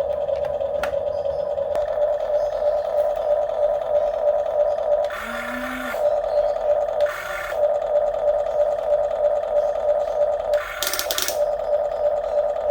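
Steady high whine of a radio-controlled excavator's electric motor running. Three short rushing or rattling bursts break in, about five seconds in, around seven seconds and near eleven seconds.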